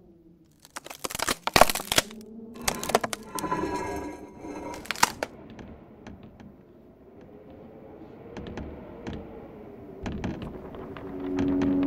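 A cluster of sharp cracks and crackling in the first five seconds or so, then sparse faint ticks over a low wavering tone. A steady low tone swells in near the end.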